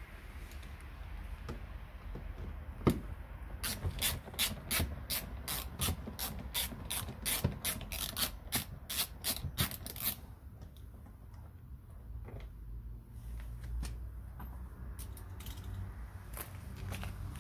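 Ratcheting screwdriver clicking about three times a second as it backs out a screw along the bottom edge of a car door trim panel, after one sharp click just before; a few faint clicks of handling follow.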